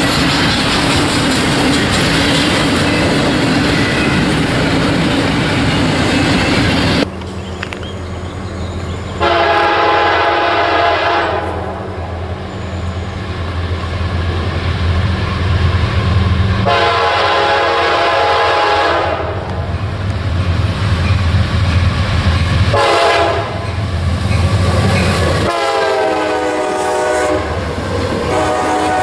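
Freight cars roll past with a steady rumble and rail noise. After a cut, a GE C40-8W diesel locomotive leading CSX Q434 approaches with a low engine drone and sounds its horn in the grade-crossing pattern: long, long, short, long. The last blast drops in pitch as the locomotive passes, followed by the clatter of cars.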